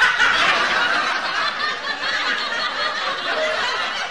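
A crowd of people laughing together, a canned laugh track that starts abruptly.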